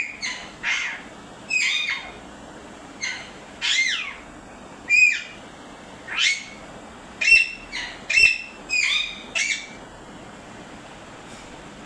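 Pet parrot squawking: a run of about fifteen short, loud screeches at irregular intervals, each rising and then falling in pitch, stopping shortly before the end.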